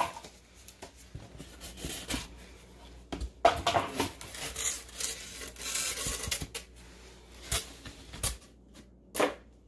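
Cardboard box and styrofoam packing being handled and pulled out: irregular scraping and rubbing, with a few sharper scrapes along the way.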